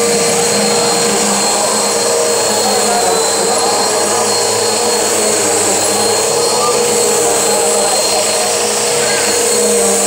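Bissell upright vacuum cleaner running steadily, its motor giving a constant whine, as it is pushed over a rug's edge and onto a hardwood floor.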